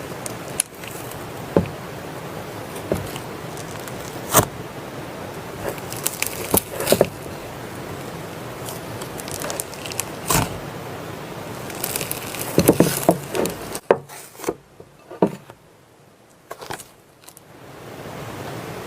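Soft slime being squished and pressed, giving scattered sharp pops and crackles over a steady hiss, with a cluster of pops a little past the middle. The hiss drops away for a few seconds near the end.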